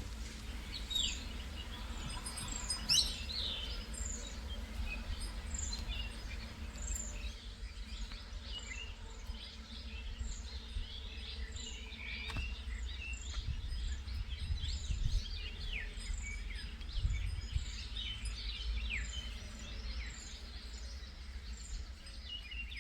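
Birds calling: one bird repeats a short, high, falling chirp over and over, roughly one and a half times a second, among scattered other bird calls, over a steady low rumble.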